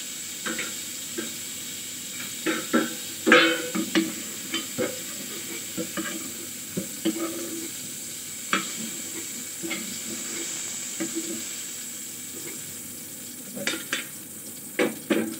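Pointed gourds (potol) sizzling steadily in hot oil in a metal pan, while a metal spatula scrapes and clinks against the pan as the pieces are turned and lifted out. The clinks come in a quick cluster near the end.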